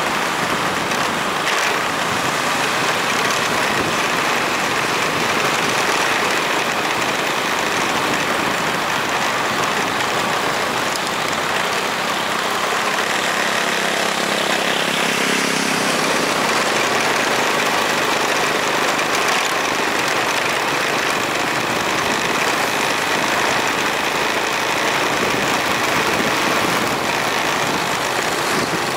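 Motorbike riding along a street: steady engine, road and wind noise picked up by a camera on the moving bike.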